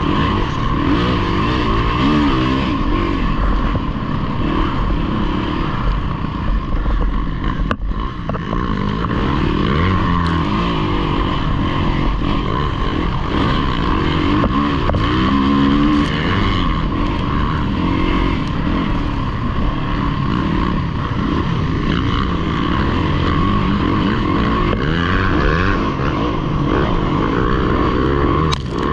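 Yamaha dirt bike engine running hard under throttle, its pitch rising and falling continuously as the rider opens and closes the throttle, with a brief drop about eight seconds in.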